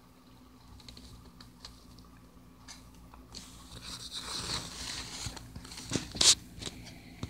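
Low steady hum of an animated motionette doll's motor mechanism running, with light rustling and small clicks from handling; a sharp knock about six seconds in is the loudest sound.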